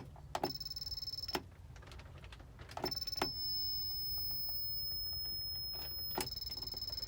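Harbor Freight 500-watt PWM solar charge controller giving off a thin, steady, high-pitched electronic whine. Around sharp clicks from its button being pressed, the whine drops out and comes back a few times, then holds steady. The owner has never heard it before and wonders whether the controller is dying or reacting to a very low battery bank.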